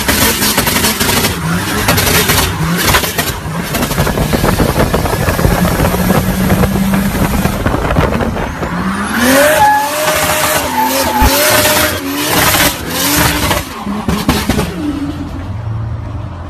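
Nissan Patrol pickup doing burnouts: the engine is revved hard and the tyres screech as they spin on the tarmac. In the second half the engine pitch climbs in several quick sweeps.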